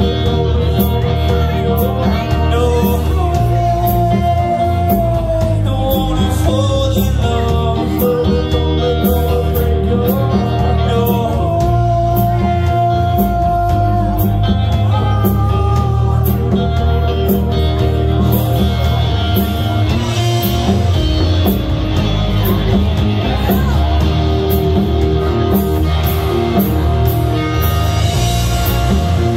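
Live rock band playing electric guitars and a drum kit while a man sings, with long held notes in the vocal line.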